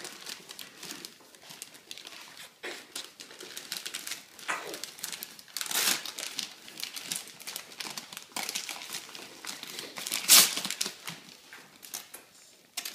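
Shiny red foil gift wrap and tissue paper crinkling and rustling as small hands pull it off a present. The rustles come in irregular bursts, the loudest about ten seconds in.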